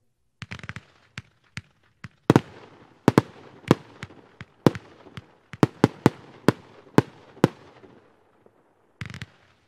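The 'Hybrid', a 30 mm F3 firework, firing: a few smaller pops, then about a dozen loud, sharp bangs over some five seconds, and a short crackling flurry near the end.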